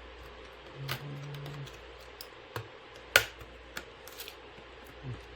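Small sharp clicks and taps of a tablet's motherboard and housing being handled and pressed into place, with one loud click a little after three seconds.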